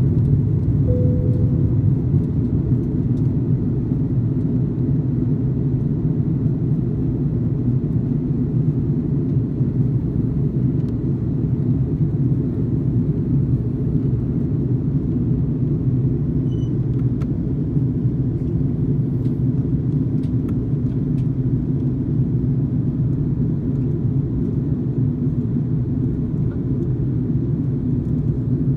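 Steady low rumble of cabin noise inside an Airbus A330-300 descending on approach, from its Rolls-Royce Trent 700 engines and the airflow over the wing with its flaps extended.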